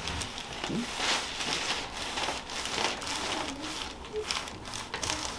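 Irregular rustling and crinkling of clothing and the treatment table as the patient is moved and handled during a chiropractic adjustment.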